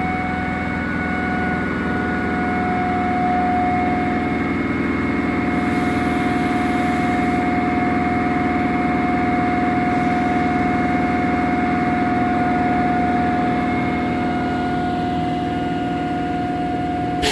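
Air compressor of an SNCF BB 7200-class electric locomotive (BB 7215) running steadily at standstill: a constant whine over a low mechanical hum.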